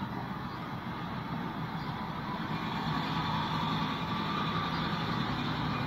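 A motor vehicle's engine running steadily, growing a little louder about halfway through.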